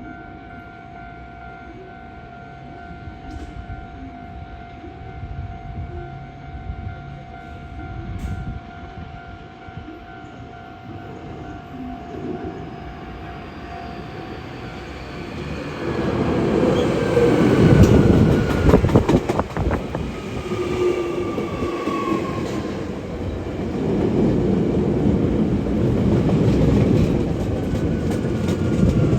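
A Hankyu electric train comes through the station, rumbling loudly from about halfway in, with a quick run of rail-joint clicks and falling whining tones from its motors and wheels. Before it arrives, a steady tone sounds and then stops.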